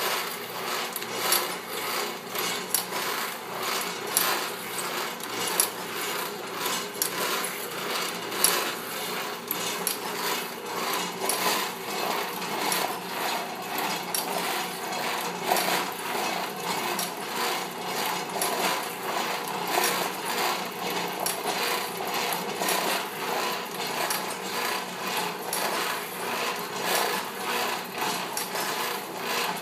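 Foley Belsaw SF1000 automatic saw sharpener running, its mechanism clattering in a steady rhythm of clacks a little more than one a second over a continuous machine whir.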